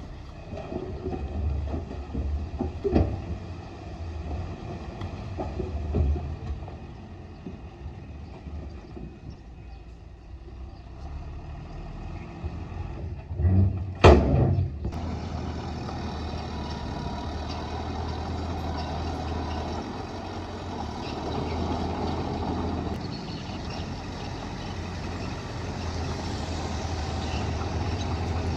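Earthmoving machinery at work: scattered clanks and knocks over a low engine hum, then a loud bang about halfway through, after which an engine runs steadily.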